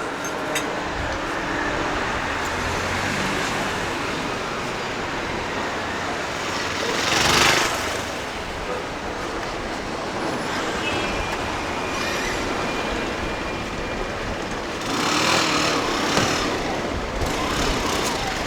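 City street traffic: a steady wash of road noise, with vehicles passing close. The loudest pass is about seven seconds in and another comes around fifteen seconds in.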